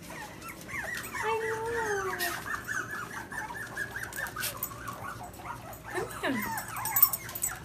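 A litter of young puppies whimpering and squeaking in rapid, high-pitched cries, with a lower falling whine about a second in and another about six seconds in. A sharp click sounds near the end.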